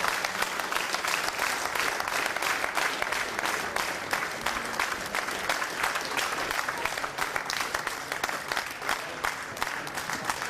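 Audience applauding: dense, steady clapping from a large crowd, easing off slightly near the end.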